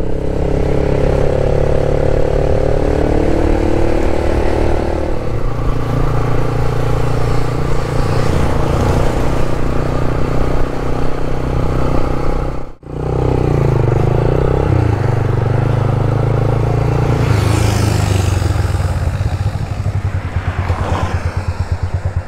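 Motorcycle engine running while the bike is ridden. The sound cuts out briefly a little past halfway, and near the end it settles into an even pulsing, like a slow idle.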